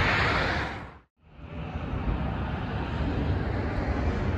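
Steady outdoor road-traffic noise, a continuous rumble and hiss. It fades to a moment of silence about a second in, at an edit, and then comes back.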